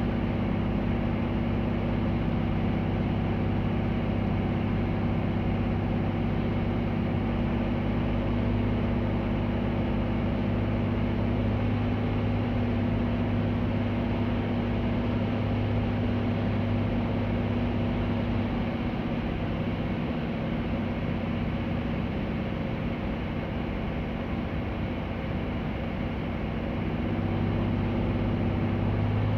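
The UL Power aircraft engine and propeller of a Van's RV-7 running at reduced approach power, a steady drone heard inside the cockpit. The low drone eases a little in the last third and picks up again near the end.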